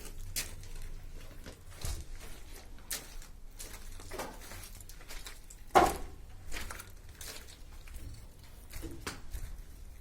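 Scattered knocks and clicks, with one louder knock about six seconds in.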